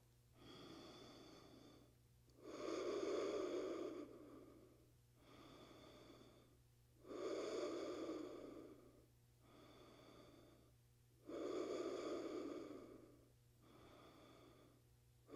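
A woman's slow, deep yoga breathing while she holds a pose. Each breath cycle is a fainter breath of about a second and a half followed by a louder breath of about two seconds, repeating roughly every four and a half seconds, about three full cycles.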